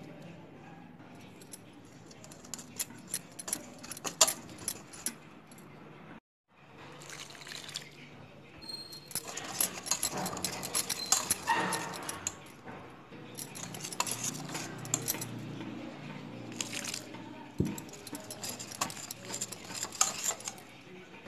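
Wire whisk stirring gram flour in a stainless steel bowl, clinking and scraping against the metal in quick irregular strokes, with a short break about six seconds in. After the break water is added and the whisk works the mix into a wet batter.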